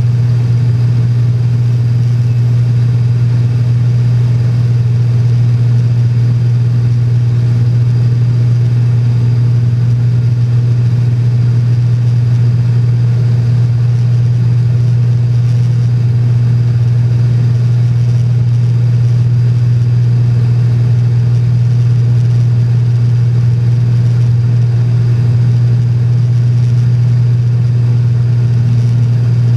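Cessna 210's six-cylinder piston engine and propeller running steadily in flight, heard from inside the cockpit as an even, low drone.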